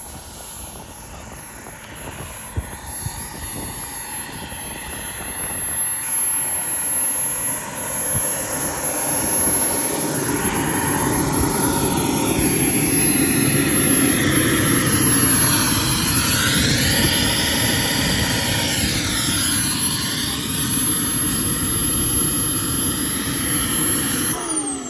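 Radio-controlled jet fighter model flying, a steady high whine with a rushing jet noise that swells as it passes and sweeps up and down in pitch. Near the end the whine drops sharply in pitch as the engine winds down.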